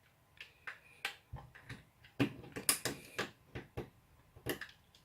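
Irregular clicks and small knocks of the plastic parts of a Panasonic ES-SL41 shaver being handled and prised apart, a few louder ones about two to three seconds in.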